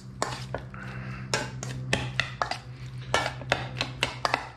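Metal spoon stirring and scraping in a stainless steel mixing bowl, tossing roasted beets with sliced red onion and pine nuts, with frequent irregular clinks against the bowl. A steady low hum runs underneath.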